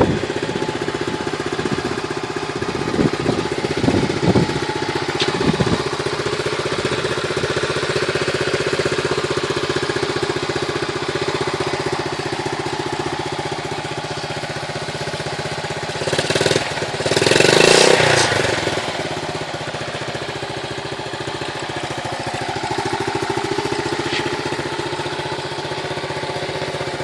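1969 Honda Trail 70's small single-cylinder four-stroke engine idling steadily after restoration. It picks up briefly a few times a few seconds in, and revs louder once about two-thirds of the way through before settling back to idle.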